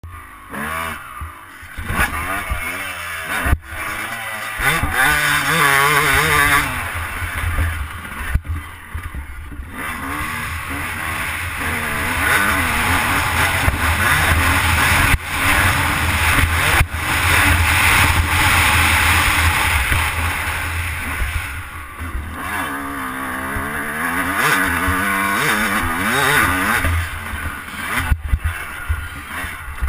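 Yamaha YZ250 two-stroke single-cylinder motocross engine revving up and down repeatedly as the bike is ridden around a dirt track, pitch climbing and dropping through the gears with a few brief dips in level, heard from the rider's helmet.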